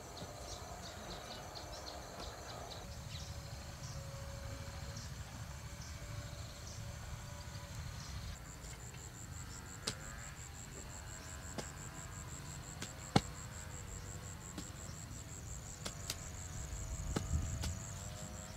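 Rural ambience: a high, rapidly pulsing insect trill that sets in a little under halfway through, with a few sharp clicks, the loudest about two-thirds of the way through.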